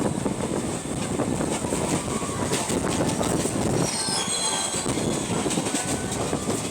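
Running noise of a 12-coach ICF electric local train heard from on board: a steady rumble and rattle of wheels on the track with scattered clicks, and a brief high-pitched wheel squeal about four seconds in.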